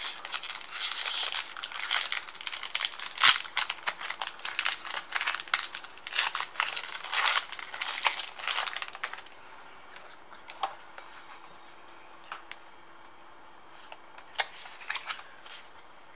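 Foil wrapper of a Pokémon Primal Clash booster pack being torn open and crinkled: dense crackling and tearing for about nine seconds, then only a few scattered light ticks.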